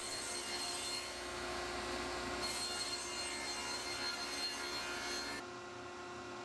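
Table saw cutting a blade-width slot along a thin wooden trim strip. The cutting noise stops sharply about five seconds in, and the saw keeps running with a steady hum.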